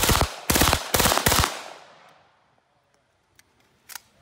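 HK MP5 submachine gun firing three short full-auto bursts in quick succession, the shots fast and closely spaced, with the echo fading away about half a second after the last burst. Two faint clicks come near the end.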